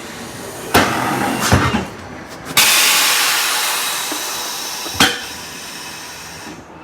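A couple of sharp knocks, then a sudden loud hiss that fades away over about three seconds, and one more knock near the end, heard while a car's oil is being changed.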